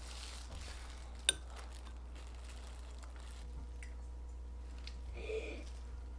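Metal chopsticks handling food in a ceramic bowl, with one sharp ringing clink of chopstick on ceramic about a second in and a brief softer sound near the end.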